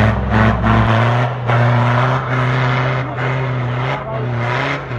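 An off-road 4x4's engine runs steadily under load as the vehicle drives past and pulls away up a slushy, muddy snow track. The engine note holds at an even pitch, with repeated surges of rushing noise over it.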